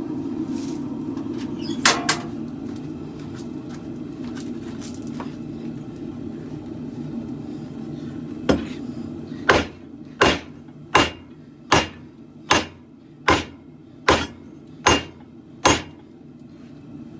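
Hand hammer striking steel on an anvil while forging a khopesh blade: a quick double blow about two seconds in, then a steady run of about ten ringing blows, roughly one every 0.8 seconds, starting just past the middle. A steady low roar runs underneath.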